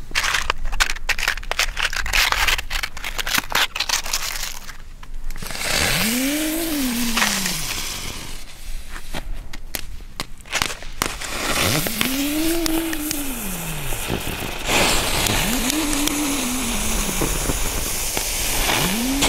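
Small ground fireworks being lit on icy snow: crunching and crackling clicks as they are handled, then spells of hiss from the lighter and the fuses. A low tone rises and falls over about two seconds, four times. Near the end a lit fuse spits sparks.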